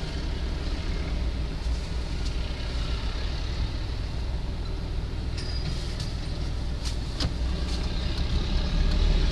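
Steady low rumble of a car heard from inside the cabin, with a few light clicks about two-thirds of the way through.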